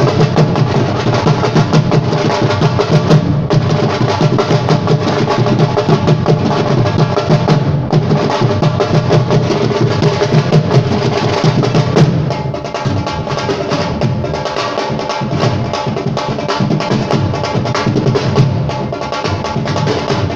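Live percussion-led music: drums playing a fast, busy rhythm over sustained pitched instrument tones, a little quieter from about twelve seconds in.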